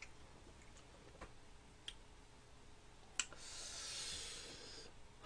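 Sipping from a glass mug: a few faint clicks, one sharper click a little after three seconds in, then about a second and a half of soft slurping hiss.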